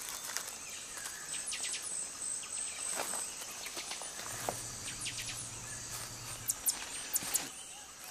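Rainforest night chorus of insects and frogs: a steady high insect trill under scattered short chirping calls, with a brief low hum midway and a few sharp clicks near the end.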